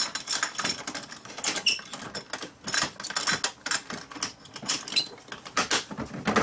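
Small plastic parts bins of a Keter Connect organizer rattling and clicking as they are handled by hand: a quick, irregular run of light plastic clicks and knocks.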